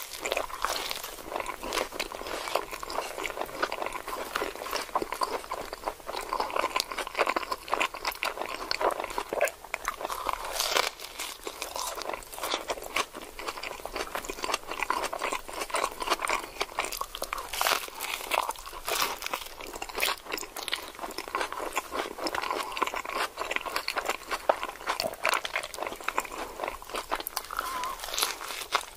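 Crunchy taco shells being bitten and chewed: a dense, irregular run of crisp crunches and crackles, with no pauses.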